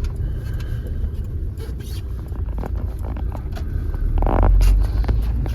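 Road rumble of a Kia car driving, heard from inside the cabin. About four seconds in, a brief louder rasping noise rises over the rumble.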